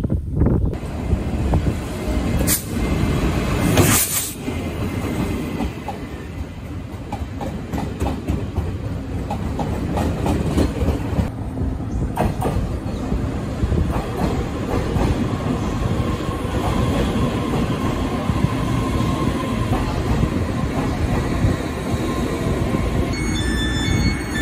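Electric passenger train pulling into a station, its wheels rumbling steadily on the rails, with a couple of sharp clanks about two and four seconds in.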